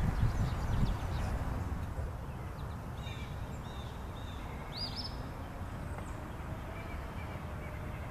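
Outdoor ambience: wind rumbling on the microphone, strongest in the first second, with a few faint bird chirps about three to five seconds in.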